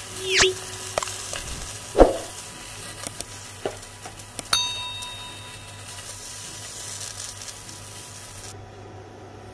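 Steady sizzle of cooking oil frying, which stops near the end. Over it come an overlaid subscribe-animation whoosh about half a second in, a loud thump about 2 s in, and a bell-like ding about 4.5 s in.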